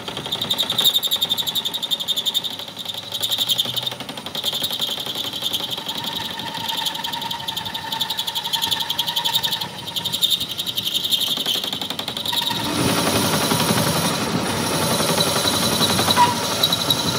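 Metal lathe cutting the end of a spinning steel axle, a rapid rattling pulse over the running machine. About twelve seconds in, the cutting noise grows louder and fuller.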